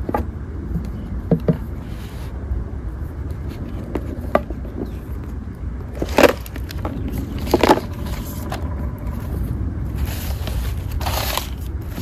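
A MacBook Pro's cardboard retail box being handled: several short sharp knocks, loudest about six and seven and a half seconds in, as the lid is lifted off, then a longer sliding scrape about eleven seconds in as the laptop is drawn out of the box. A steady low rumble underlies it all.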